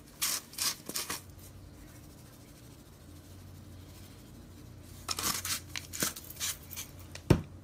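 Plastic spice shaker shaken over fish in a glass bowl, the seasoning granules rattling in short bursts: three quick shakes near the start and a longer run of shakes about five seconds in. A single sharp click comes near the end.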